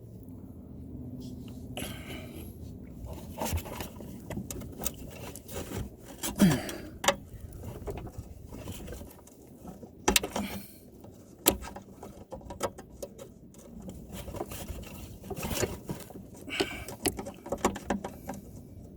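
Irregular scraping and sharp clicks of hand tools prying at stubborn plastic clips that hold a mower's self-propel cable, with metal-on-plastic knocks.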